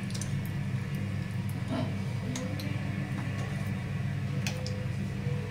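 Ghee heating in a hot pan, giving scattered faint ticks and crackles, over a steady low hum.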